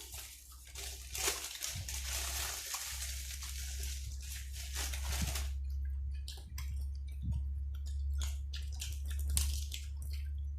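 A person eating close to the microphone, crunching and chewing spicy pork nam tok with raw cabbage and long beans; a dense crunching hiss for about the first five seconds gives way to scattered sharp clicks of chewing. A steady low hum runs underneath.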